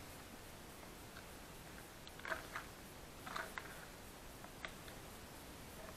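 Faint handling noise from fuel pump parts and wiring worked with gloved hands: a few light plastic clicks and taps about two seconds in, around three and a half seconds in, and once more near the five-second mark.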